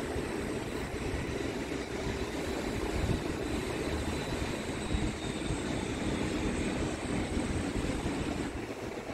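Airplane engine noise at an airport: a steady, dense rumble with a faint high whine above it, easing slightly near the end.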